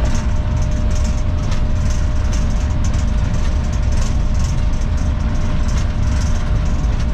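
General Electric GEU-40 diesel-electric locomotive running at speed, a steady loud rumble of engine and wheels on the rails, heaviest in the low end.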